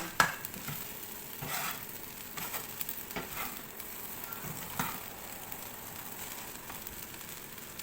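Fried rice sizzling steadily in the frying pan, with a sharp knock just after the start and a few scrapes as it is stirred.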